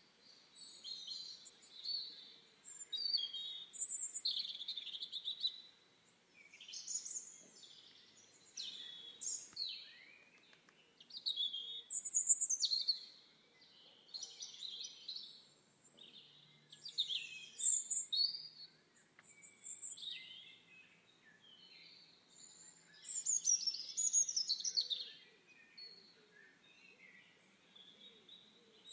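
Songbirds singing: bursts of chirps and trills lasting a second or two each, repeated with short pauses between.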